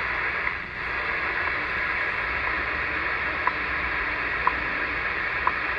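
Realistic DX-100 shortwave receiver tuned to the WWV time signal on 15 MHz: a steady shortwave hiss with the station's short, high seconds tick once every second.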